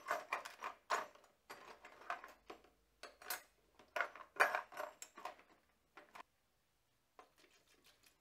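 Old metal bicycle parts (derailleurs, brake levers, stem, washers and headset cups) clattering and clinking against each other in a plastic tub as a gloved hand rummages through them, in quick irregular runs. The clatter stops about six seconds in, and a few fainter clinks follow near the end.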